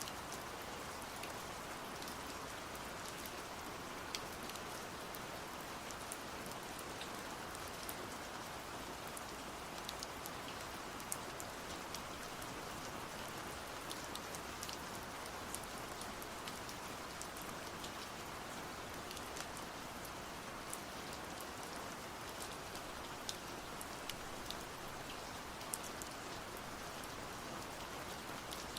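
Steady rain falling, an even hiss dotted with the sharp ticks of single drops hitting a surface.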